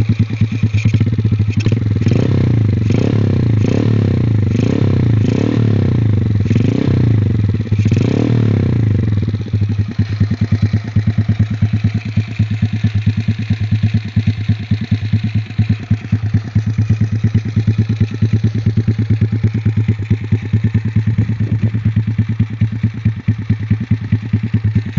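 Single-cylinder Honda XRM motorcycle engine through an aftermarket Akrapovic exhaust, blipped in a quick run of about a dozen revs, roughly one and a half a second, for the first nine seconds. It then settles to a loud, pulsing idle.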